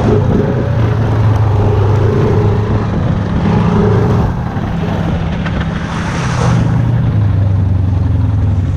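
Off-road vehicle engine running steadily on a trail, easing off about four seconds in and pulling again near six and a half seconds, with a brief rush of noise around six seconds.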